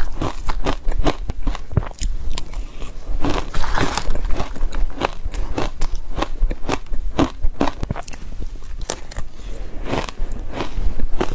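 Close-miked crunching and chewing of soft, powder-coated shaved ice, a dense run of small crisp crackles at irregular intervals.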